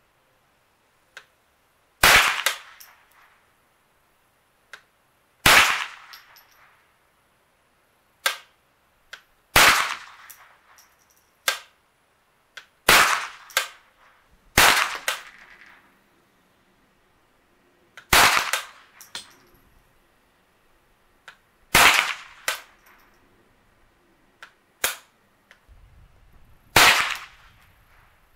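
Henry AR-7 Survival Rifle, a take-down .22 LR, firing single shots at a slow, even pace: about eight sharp cracks a few seconds apart, each with a short ringing tail, and fainter cracks in between.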